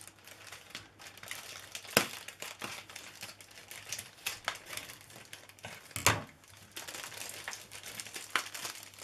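Crinkling plastic film on a tray pack of chicken stomachs as it is cut with scissors and pulled open, with a sharp snap about two seconds in and a heavier knock about six seconds in.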